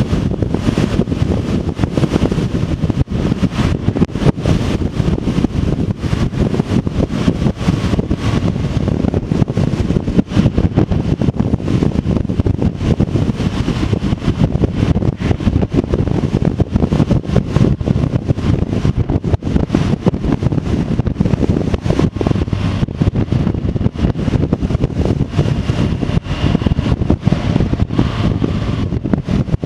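Wind buffeting the microphone of a motorcycle-mounted action camera at about 50 mph, a loud, gusty rush with the motorcycle's engine and tyre noise underneath.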